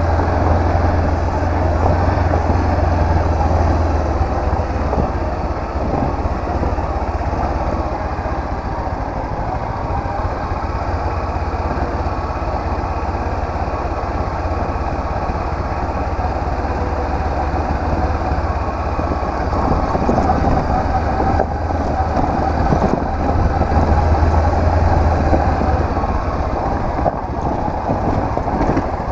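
Honda CB500X's parallel-twin engine running at a steady pace while riding, with a low rumble and road noise that stay even throughout.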